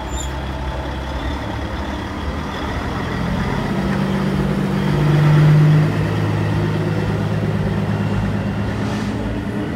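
A long-nose semi-truck tractor's diesel engine running as the truck rolls slowly past at close range, with a steady deep drone that swells to its loudest about halfway through.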